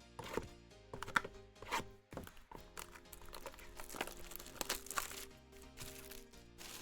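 Trading-card pack wrappers crinkling and tearing, with cards clicking and shuffling as they are handled, over background music.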